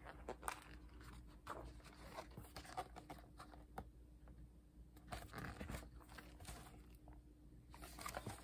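Faint rustling and scattered light taps of thick, glossy photobook pages being turned and the hardcover book being handled.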